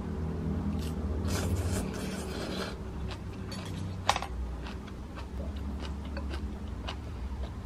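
Eating sounds: chewing, with scattered light clicks of metal chopsticks against a plastic takeout bowl, one sharper click about four seconds in, over a low steady hum.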